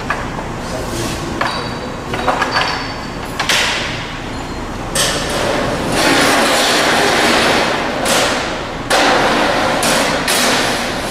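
Sheet metal clanking and knocking against the steel table and tooling of a Cidan Futura Plus 30 folding machine as the workpiece is handled. Several sharp knocks come in the first half, then two longer stretches of rushing, scraping noise as the sheet slides across the table.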